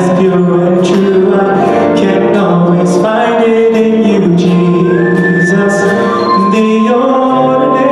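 Male vocal group singing gospel in close harmony into microphones, on long held notes.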